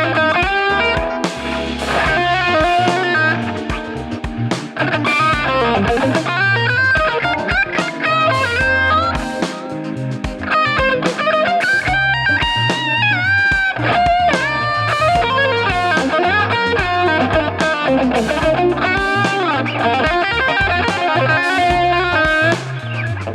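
Electric guitar with Wilkinson high-output ceramic pickups playing a lead line of single notes, with bends and slides.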